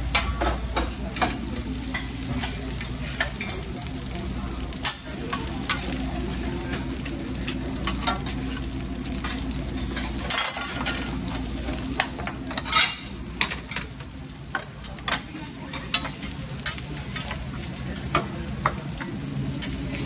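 Eggs and meat sizzling on a diner's flat-top griddle and in small egg pans, with frequent short clanks and scrapes of a metal spatula and pans against the grill, over a steady low hum.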